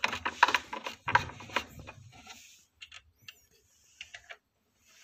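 Hand screwdriver driving a screw through a drawer runner into the wooden cupboard side: rapid clicking and scraping for about two seconds, then a few scattered clicks.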